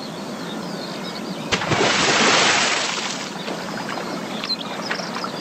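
A runner falling into a steeplechase water-jump pit: a sharp smack about one and a half seconds in, then about a second of splashing water that eases off into a steady low wash.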